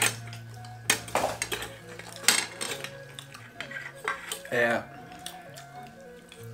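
Metal spoons clinking and scraping on ceramic plates and bowls as several people eat and serve food, in scattered sharp clinks with the strongest about a second apart early on and another pair near 2 and 4.5 seconds in.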